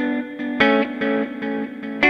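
Background music: a plucked guitar playing repeated chords or notes in a steady rhythm, about three a second.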